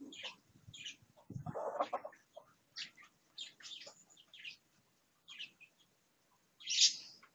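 Chickens dust bathing in dry dirt: short, scratchy rustles of dirt and feathers come and go, with a fuller burst about a second and a half in and the loudest one near the end.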